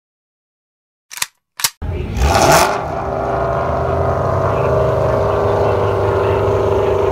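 Silent at first, then two short clicks and a brief loud rush of noise about two seconds in. After that an S550 Ford Mustang GT's 5.0 V8 runs on with a steady, even note, held at the start line before the launch.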